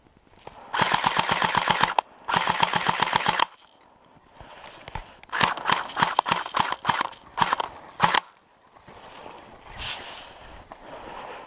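Airsoft gun firing full-auto bursts of rapid clicking shots: two bursts of about a second each, then a string of shorter bursts a few seconds later.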